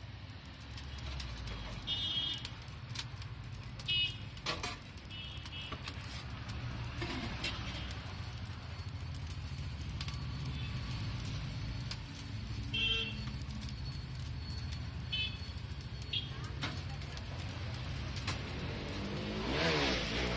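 Steady low rumble of street traffic with scattered clinks and knocks, and near the end a metal spatula chopping and scraping on a hot dosa griddle.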